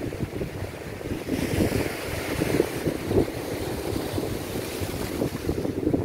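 Atlantic Ocean surf breaking and foaming over rocks. A wash of hiss swells about a second in and fades near the end. Wind buffets the microphone throughout.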